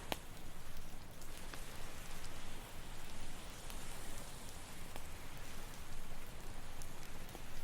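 Campfire crackling, with a few sharp pops, over a steady hiss of ocean surf that swells about halfway through.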